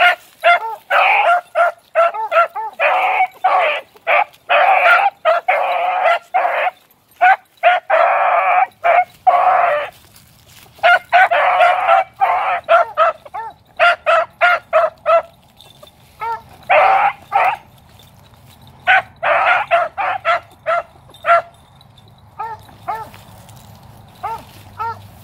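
Young beagle pups baying on a scent track, several voices overlapping in dense bursts. The chorus pauses briefly about ten seconds in, then thins to scattered single calls over the last several seconds.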